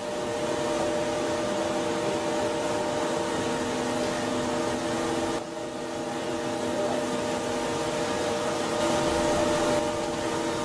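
ANGER HCP 8 five-axis high-speed machining center running, a steady mechanical hum with several whining tones over a hiss, dipping briefly about five seconds in.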